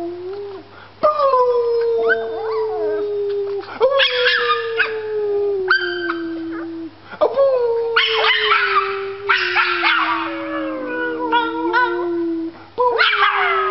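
A man and a small tan puppy howling together: long drawn-out howls, each lasting a few seconds and sliding slowly down in pitch, start again about every three seconds. The puppy's higher, wavering howls join in about four seconds in and again from about eight to ten seconds.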